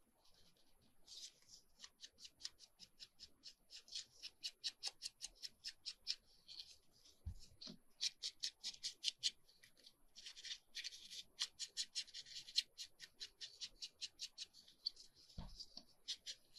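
Foam ink blending tool being rubbed in quick, repeated strokes across the edge of a paper piece, about five strokes a second, soft and scratchy. Two soft thumps break in, around the middle and near the end.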